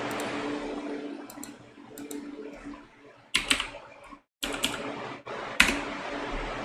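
Computer keyboard typing in quick bursts of keystrokes, after a few light clicks, with the sharpest keystroke a little before the end.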